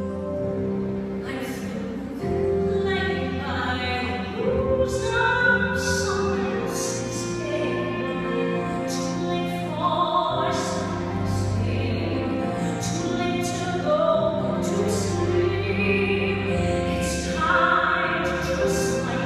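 Live orchestra accompanying a woman singing a show tune in a sustained, vibrato-laden style, heard from far back in a large, reverberant concert hall.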